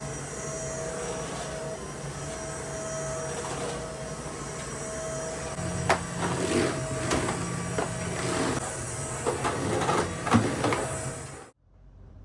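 A steady mechanical whirr with a faint held tone, joined about halfway through by a series of clinks and knocks like items being handled, then cutting off abruptly near the end.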